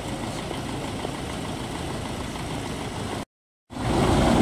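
Diesel engine of a tractor-based backhoe loader running steadily. The sound drops out for a moment about three seconds in and comes back louder.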